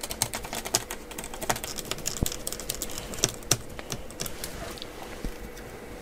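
Light, irregular clicking and tapping of a small screwdriver driving the battery screws in an open laptop. The clicks come thick and fast at first and thin out over the last couple of seconds.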